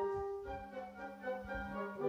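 A wind quintet playing classical music live, a softer passage of held wind notes. A few low thumps from the phone being moved sound underneath.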